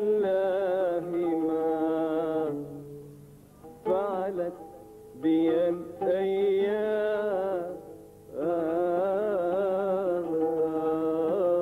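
A man singing Iraqi maqam in long, ornamented phrases with wavering held notes, broken by short pauses, accompanied by his own oud.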